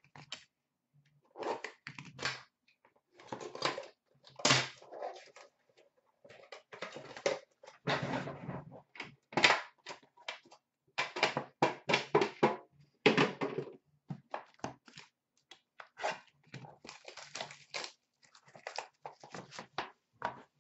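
Hands handling and opening a sealed trading-card box: irregular knocks and thunks of the box on a glass counter, mixed with scraping and the crinkle of wrapping.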